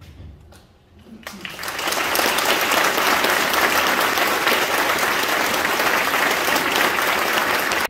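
Audience applauding, starting about a second in and building to a steady level, then cut off suddenly at the end.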